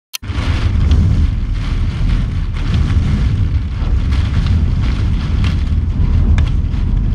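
Hurricane-force storm wind and driving rain against a window, with loud wind rumble on the microphone and occasional sharper gusts or spatters. A single sharp tick comes right at the start.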